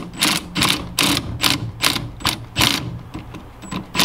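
Ratchet on a long extension bar turning a fastener, clicking in short even bursts about two and a half times a second.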